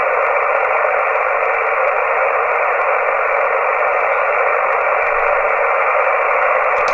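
CB transceiver in receive on upper sideband at 27.565 MHz, its speaker giving a steady hiss of band noise with no station coming through.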